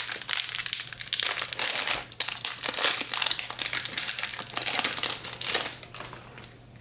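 Plastic wrapper of a 2015 Bowman Chrome trading-card pack crinkling as it is torn open and the cards are pulled out, dying down near the end.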